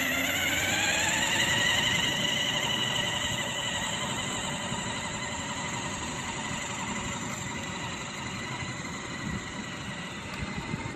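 Electric drive motors of a remote-control cooler whining as it climbs a steep incline carrying about 75 pounds. The whine rises in pitch over the first couple of seconds as it gathers speed, then holds steady and slowly grows quieter.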